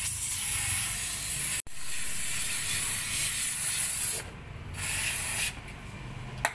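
Aerosol cleaner hissing out through its thin extension straw as it is sprayed to wash seeped engine oil off the engine block: one long burst of about four seconds, then a short burst of under a second, then it stops. A single click near the end.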